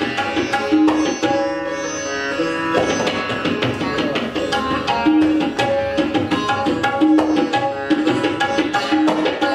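Background music in an Indian classical style: a plucked sitar melody over tabla drumming with a steady beat.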